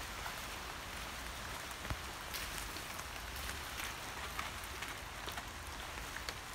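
Light rain falling: a steady soft hiss dotted with scattered faint ticks of drops.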